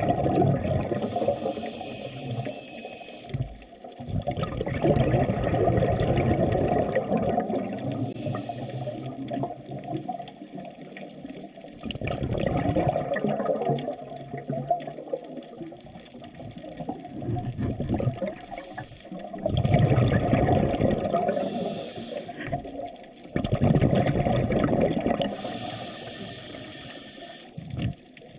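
Sea water surging and washing in repeated swells that build and fade every few seconds, sounding muffled and low.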